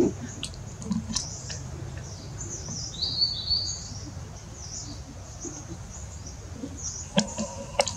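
Small birds chirping and twittering, with a brief trill about three seconds in, over steady low background noise.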